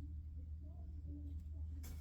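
Quiet room with a low steady hum and one faint, short knock near the end.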